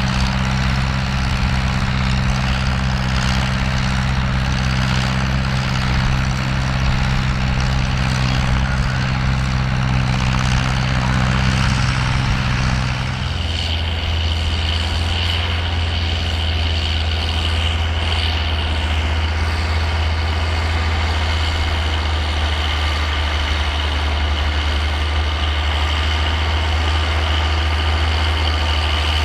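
Tractor engine running steadily. About halfway through, the engine note abruptly drops to a lower pitch and a steady high whine comes in.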